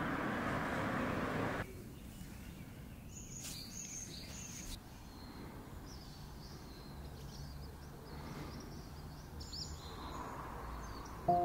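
Outdoor background noise: a steady rushing noise that cuts off after about a second and a half, leaving a quiet background with a few short bird chirps.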